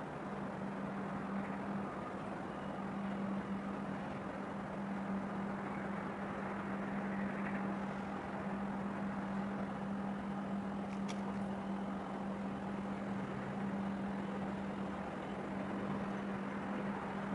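Harbour ambience under a steady low engine hum from the boats on the water, with one short click about eleven seconds in.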